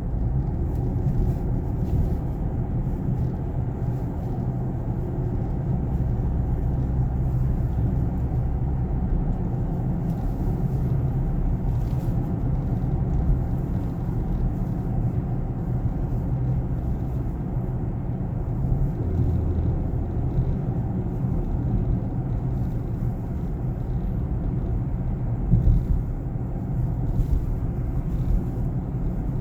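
Range Rover Velar cabin noise on the move, a steady low road rumble, with faint clicks now and then and two sharper ones near the end: the door clicking noise the owner is chasing.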